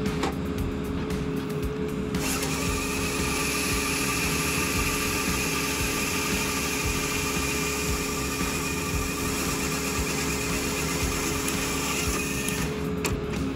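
Hydraulic chainsaw bar of a skid-steer firewood processor attachment cutting through a log, a steady high whine and rasp that starts about two seconds in and stops about a second before the end. Underneath, the compact track loader's diesel engine and hydraulics drone steadily.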